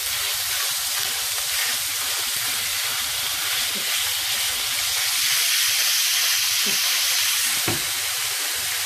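Minced meat frying hard in ghee in a non-stick pan on high heat: a steady sizzle, a little louder about halfway through, as it is stirred and broken up with a silicone spatula.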